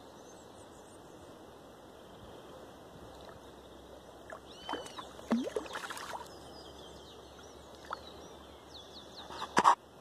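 A hooked parati mullet splashing and thrashing at the surface near the bank, in loud bursts about five to six seconds in and again near the end. Birds chirp faintly throughout.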